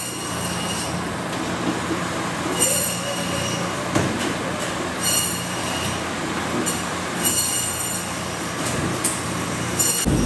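Meat band saw running with a steady motor hum, its blade squealing in short high-pitched bursts every second or two as pork is pushed through it. A louder rough noise sets in at the very end.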